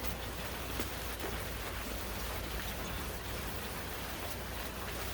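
A steady, even hiss like rain, with faint scattered ticks and a low hum beneath.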